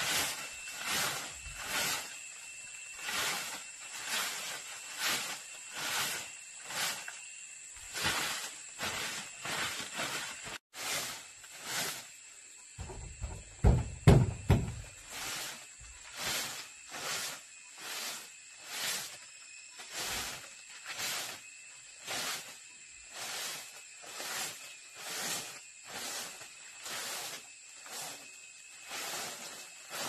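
A broom of bundled dried leaves sweeping sawdust across wooden floorboards: a brushing, hissing stroke about once a second, with a few louder knocks on the boards about halfway through.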